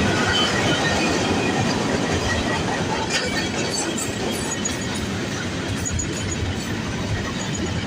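Freight train rolling steadily past on the rails, wheels clattering over the track with some wheel squeal.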